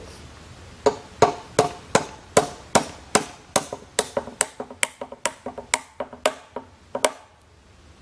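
Hammer driving nails into the wooden stakes and boards of a concrete sidewalk form. About three sharp, ringing blows a second, with lighter taps between them, starting about a second in and stopping about a second before the end.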